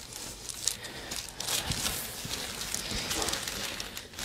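Rustling and scattered light clicks and crackles of a patient being handled and shifting on a chiropractic treatment table.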